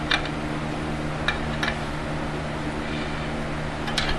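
Steady low workshop hum with a few light, sharp metallic clicks from a spoke wrench turning nipples on a bicycle rear wheel during truing.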